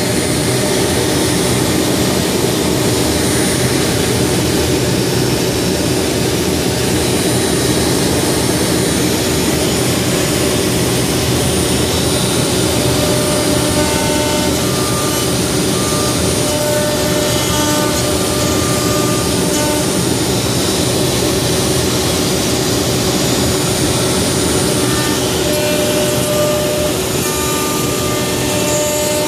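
CNC wood router carving a hardwood block: the spindle runs with a loud, steady whine while the small tapered bit cuts the wood. From about halfway, short tones of different pitches come and go as the machine moves.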